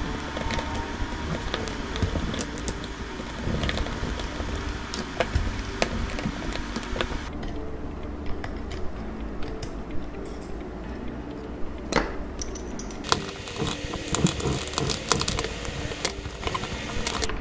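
Irregular small clicks and clinks of metal tools and parts: tweezers and a precision screwdriver working on the opened chassis of a Huawei Honor 10 smartphone, removing tiny screws and a small metal bracket.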